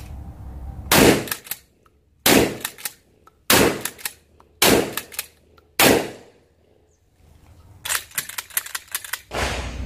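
Derya Carina CR-201 12-gauge pump-action shotgun fired five times, about one shot every 1.2 seconds, each sharp blast followed by smaller clacks as the pump is cycled. Near the end, a quick run of clicks and clacks as the pump action is worked again.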